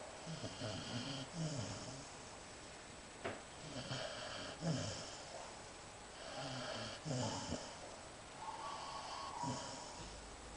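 Golden retriever snoring in deep sleep, a rasping snore with each breath, coming every two to three seconds. A short click a little over three seconds in.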